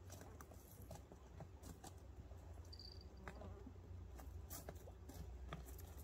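Near silence: faint outdoor ambience with a low rumble and scattered light clicks, and one brief high chirp about halfway through.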